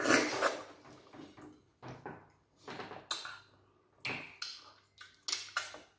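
Close mouth sounds of eating okra banga soup and starch by hand: wet slurps, lip smacks and finger-sucking. The first and loudest slurp comes at the very start, then shorter ones follow about once a second.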